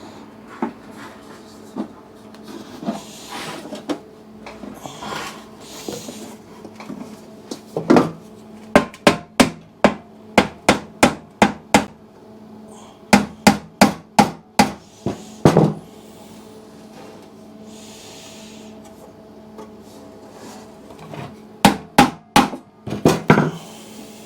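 Hammer tapping sheet steel in three runs of quick, sharp blows, about two to three a second, knocking a folded steel panel into shape in a motorcycle fuel tank repair; a steady low hum underneath.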